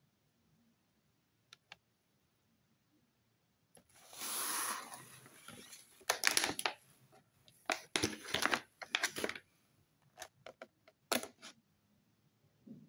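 Paper and plastic food packaging being handled. A rustle starts about four seconds in, then comes a run of sharp crinkles, and a few clicks near the end.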